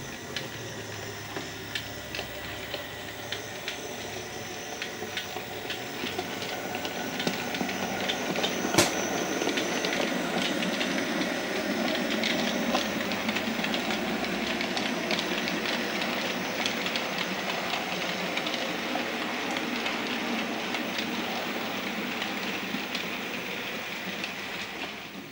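Model steam locomotive running along the layout track: a steady running noise with many small clicks of the wheels over rail joints and points. It grows louder as the engine comes close, with one sharp click about nine seconds in, then eases off.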